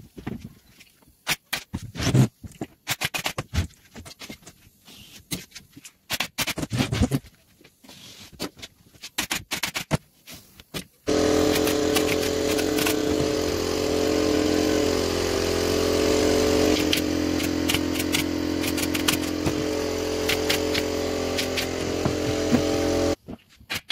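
Scattered clicks and scrapes, then about halfway through a motor starts and runs steadily with a low, even hum before cutting off suddenly near the end.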